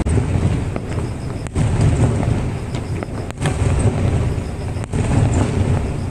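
Fireworks bursting overhead: a dense, low rumble of overlapping booms that swells several times.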